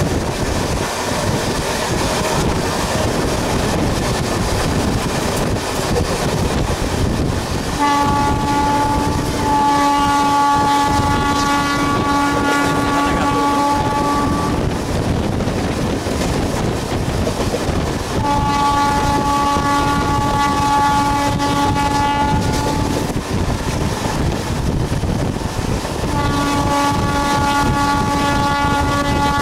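MEMU electric train running at speed, heard from inside the carriage as a steady rush of wheel, rail and wind noise. A train horn sounds three long blasts: about eight seconds in, again around eighteen seconds, and from about twenty-six seconds on, the last still sounding at the end.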